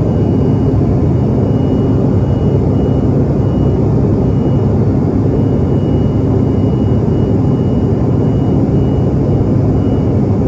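Steady cabin roar inside a CRJ-700 regional jet climbing out after takeoff, from its two rear-mounted General Electric CF34 turbofan engines. A faint high whine comes and goes above the roar.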